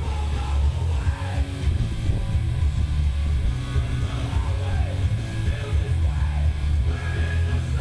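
Rock music with guitar and a heavy, steady low end.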